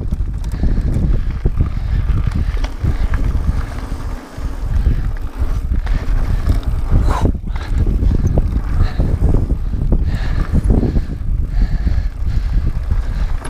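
Mountain bike descending a dirt trail at speed: rushing wind on the camera's microphone and the rumble of tyres over dirt and gravel, with a few sharp knocks as the bike hits bumps, the strongest about seven seconds in.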